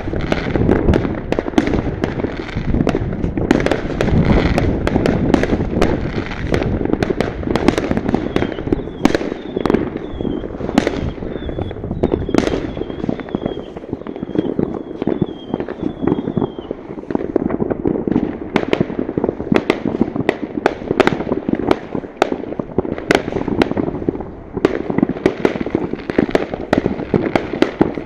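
New Year's fireworks going off in large numbers: a continuous rumble and crackle of bursts, with frequent sharp bangs throughout. From about a third of the way in until past the middle, a high warbling tone repeats over and over.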